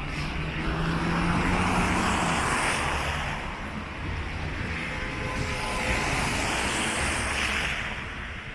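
City street traffic: two vehicles drive past on a wet, slushy road, each a swell of tyre noise lasting a few seconds, the first about a second in and the second past the middle.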